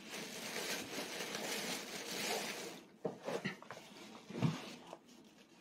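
Crinkly rustling for about three seconds, then a few light taps and clicks.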